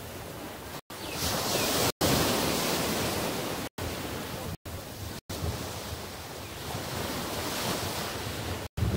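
Small surf breaking and washing up a sandy beach, with wind buffeting the microphone. The wash swells about a second in and eases off again around three and a half seconds. The sound cuts out for an instant six times.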